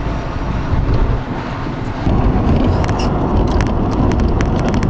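Taxicab on the move, heard from inside the cab: a steady road and engine rumble. A quick run of sharp clicks and ticks comes in over it in the second half.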